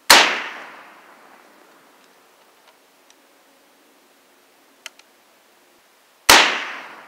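Two shots from a .45-120 Sharps rifle, about six seconds apart, each a sharp report followed by a long fading echo. A couple of faint clicks come shortly before the second shot.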